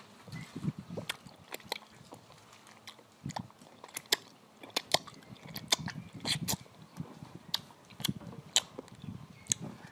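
Close-up eating sounds of a person biting and chewing slices of mango held to the mouth, with many sharp, wet mouth clicks and smacks scattered unevenly throughout.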